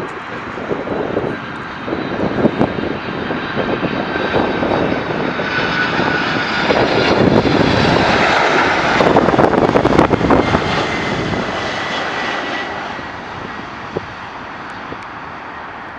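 Airliner passing low overhead on approach to land: the engine noise swells to a peak about eight to ten seconds in, then fades away, with a high whine running through it.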